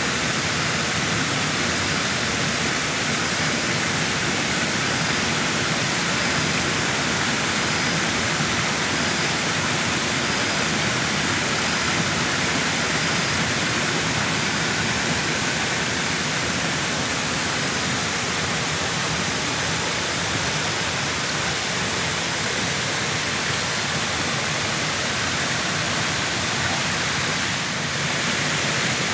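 Steady, even rushing noise that does not change in level, with a faint high chirp repeating about once a second through the first half.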